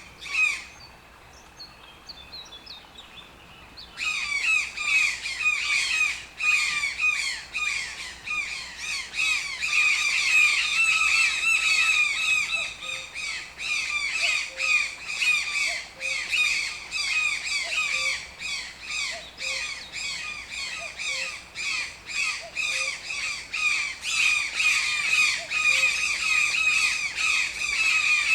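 Toucan calling in a rapid series of short, harsh notes, several a second, after a lull of a few seconds near the start.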